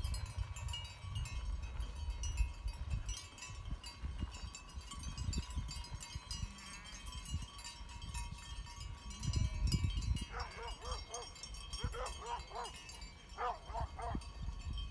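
Great Pyrenees sheep dogs barking in quick runs of three or four barks, starting about ten seconds in. Wind rumbles on the microphone, with a faint high tinkling throughout.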